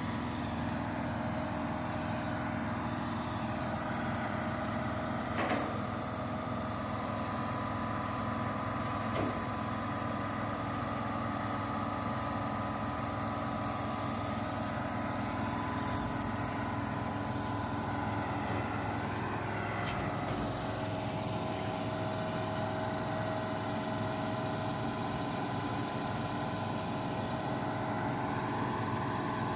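Tipper truck's diesel engine running steadily while it powers the hydraulic hoist raising the tipping body to dump a load of soil. Two brief knocks about four seconds apart, and a short rise in pitch about two-thirds through.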